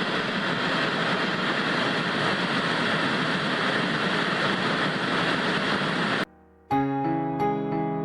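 Steady static hiss of a dead radio channel that cuts off abruptly about six seconds in. After a brief silence, slow piano music begins near the end.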